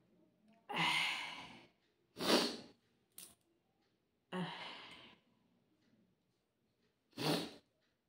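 A woman's heavy breathing and sighing: two long sighing breaths that fade away, about a second in and near the middle, with short, sharp breaths between them and one near the end.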